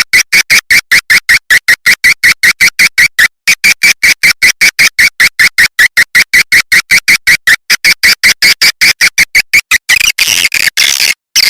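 Swiftlet lure call: a fast, even train of short, sharp chirps, about six a second, with two brief pauses. Near the end it turns into a dense twittering chatter.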